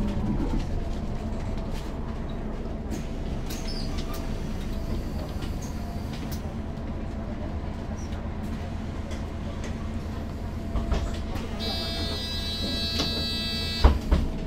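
Mercedes-Benz O530 G II Citaro articulated bus running, heard from inside the passenger cabin as a steady rumble. Near the end a buzzing warning tone sounds for about two seconds, followed by two sharp thumps.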